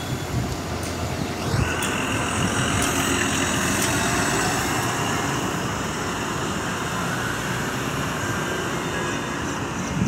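Street noise with a motor vehicle running close by, and a steady high-pitched whine over it from about a second and a half in.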